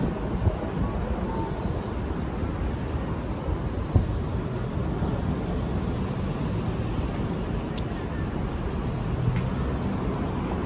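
City street traffic: a steady rumble of passing cars and buses, with one sharp knock about four seconds in.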